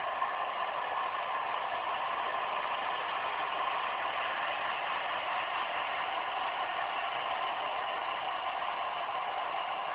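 Model diesel locomotive's sound decoder playing a steady idling diesel engine sound through its small speaker. The sound goes on unchanged after the locomotive stops.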